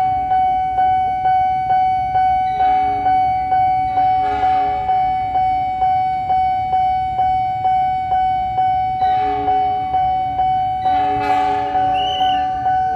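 Level-crossing warning bell ringing steadily at about two strikes a second. Over it, an approaching diesel locomotive sounds its horn four times in two pairs, the first pair a few seconds in and the second near the end.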